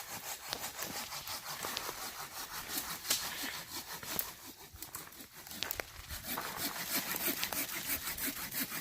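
Hand saw cutting through a fallen tree limb across a trail, with steady back-and-forth rasping strokes.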